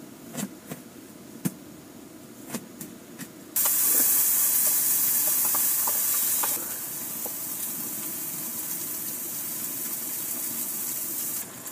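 A few light clicks and taps, then a sudden loud sizzle as eggs go into a hot frying pan; after about three seconds it drops to a lower, steady sizzle and cuts off suddenly near the end.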